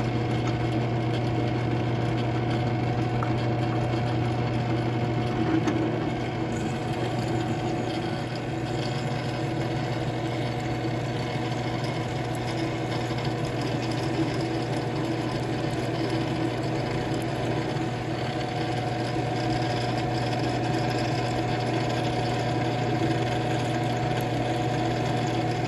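Drill press running steadily, its twist bit boring through a steel grade 2 bolt clamped in a vise. The motor gives a steady hum with a constant tone.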